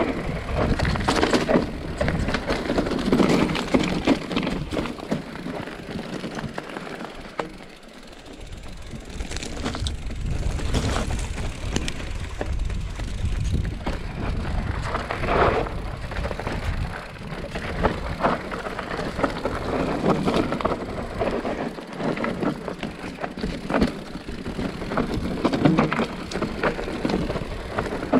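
Mountain bike riding fast down a rough trail: tyres crunching over the ground and the bike rattling and clacking, with wind rumbling on the microphone. It goes briefly quieter about eight seconds in and again near twenty-two seconds.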